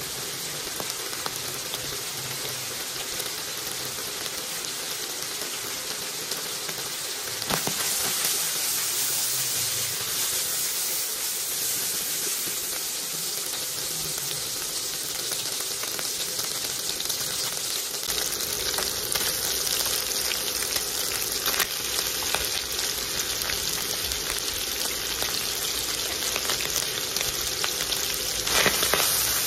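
Chopped meat and red onion sizzling as they fry in a wok, a steady hiss that grows louder about a quarter of the way in, with a brief louder burst near the end.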